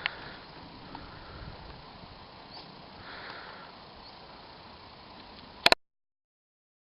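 Quiet background hiss with a few soft rustles, then two sharp clicks close together near the end, after which the sound cuts off dead as the recording stops.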